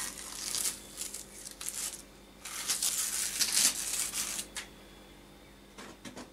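Masking tape being peeled off the taped edges of a painted canvas, a rasping, crackling rip in two long pulls: one in the first second, a longer one from about two and a half to four and a half seconds in.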